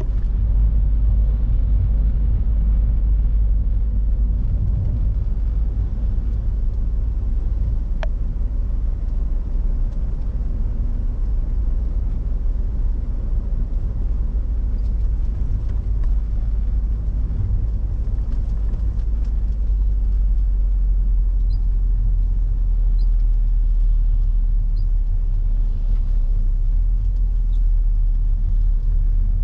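Peugeot 406 sedan on the move: a steady low rumble of engine and road noise, with a brief faint tick about eight seconds in.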